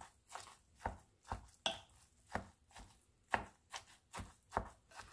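A utensil mixing broth-soaked cornbread dressing in a bowl, knocking and scraping through the mix in regular strokes, two to three a second.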